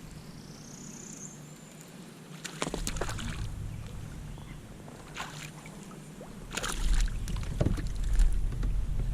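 Handling noise in a kayak: a few separate knocks and bumps against the hull, with low rumbling noise that grows louder about two-thirds of the way in.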